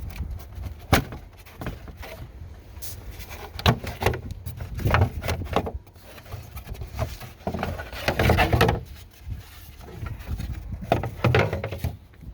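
Irregular knocks and rubbing or scraping noises over a steady low rumble: a sharp knock about a second in and another near four seconds, and longer scraping passes around the middle and near the end.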